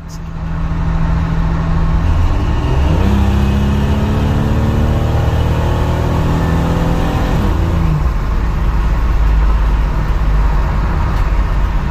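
A 1989 Chevy S10's 4.3-litre V6, heard from inside the cab while driving, under steady road noise. The engine note climbs from about three seconds in as the truck accelerates, then drops back shortly before eight seconds.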